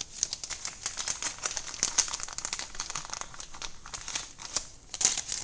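Dense, rapid crinkling and crackling of something being handled close to the microphone, stronger about two seconds in and again near the end.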